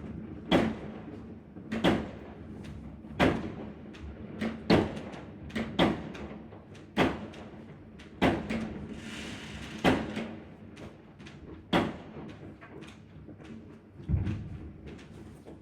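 Fireworks going off: a string of sharp bangs roughly one to two seconds apart, each with an echoing tail, with a brief hiss about nine seconds in.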